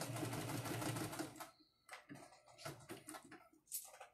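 Electric domestic sewing machine stitching with a fast, even run of needle ticks that stops about a second and a half in, followed by a string of separate clicks as it goes on slowly.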